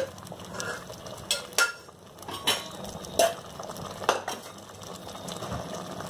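Metal ladle clinking and knocking against a cooking pot: about five separate knocks spread over the first four seconds, then only a faint steady background.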